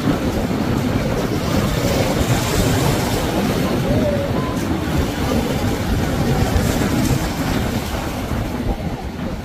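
Wind buffeting the microphone over rushing waves and the low, steady running of a large motor yacht's engines as it passes close by.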